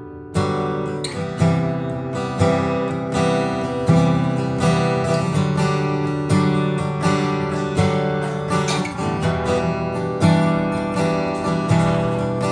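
Vintage 1970s Aria D-60 acoustic guitar, built by R. Matsuoka in Japan, being played in strummed chords left to ring. A fresh stroke comes every half second to a second, starting as the previous chord dies away.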